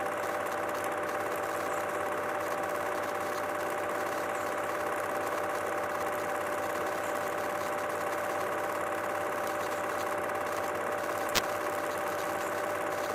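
8mm film projector running steadily with a constant mechanical whir and hum. A single sharp click sounds near the end.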